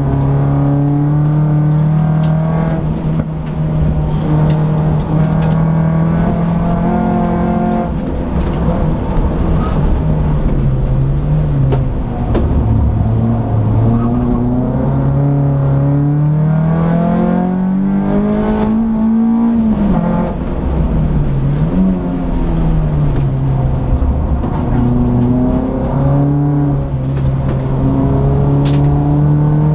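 Peugeot 206 S16's 2.0-litre sixteen-valve four-cylinder engine heard from inside the cabin at track pace. The engine holds steady revs for stretches, climbs under acceleration, and drops sharply at the gear changes and lifts.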